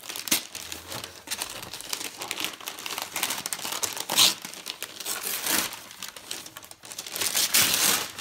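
Brown wrapping paper rustling and being torn as a present is unwrapped, with louder rips about four seconds in and near the end.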